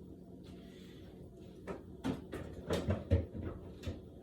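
Kitchen items being handled: a run of light knocks and clunks, the loudest about three seconds in, over a steady low hum.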